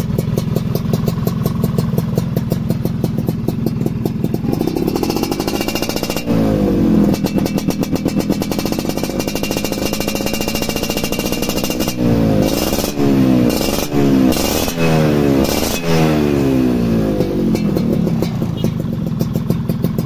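Yamaha Alfa two-stroke engine running through an F1ZR expansion-chamber exhaust: idling, revved up once about five seconds in and held fast, then given about five quick throttle blips in the second half before settling back to idle. Its carburettor is set a little rich, so the exhaust has little of its jingling two-stroke ring.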